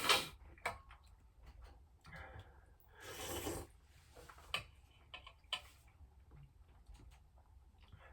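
Eating utensils clicking sharply against a bowl of tteokguk (rice cake soup), a few irregular clicks with the loudest right at the start. Two longer, softer noisy sounds of eating come about two and three seconds in.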